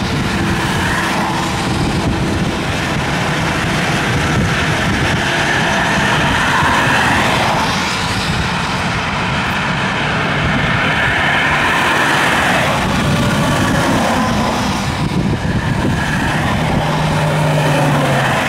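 Steady highway traffic passing close by: cars, pickup trucks and semi-trucks going past at speed, a continuous rush of tyre and engine noise, with a deeper engine note near the end as a truck goes by.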